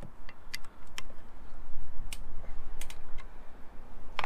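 Irregular small metallic clicks of an Allen key and bolt against the mounting block of a 4-inch LED work light as the bolt is screwed in, over a low steady rumble.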